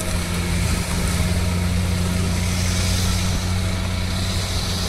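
Loaded Tata Signa truck's diesel engine pulling steadily up a grade under a load of iron bars, a steady low drone at slightly lowered revs. A car passes close by near the end.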